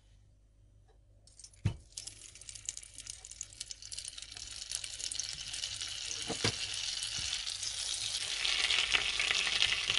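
Butter and oil heating in a pot and starting to sizzle, the crackling growing steadily louder. A sharp clink about a second and a half in, and a fainter one later.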